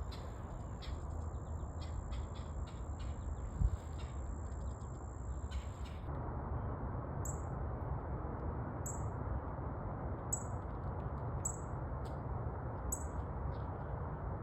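Wild birds calling: short, high, falling chirps repeated about every second and a half through the second half, over a steady low outdoor rumble. A steady high whine with scattered clicks runs for the first six seconds and then stops.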